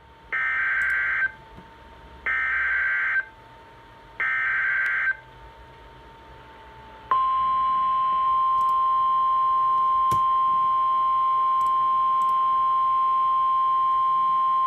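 NOAA Weather Radio emergency alert header: three bursts of SAME digital data, each about a second long and two seconds apart, then from about seven seconds in the steady 1050 Hz warning alarm tone, one unchanging pitch, that signals a warning about to be read, here a river flood warning.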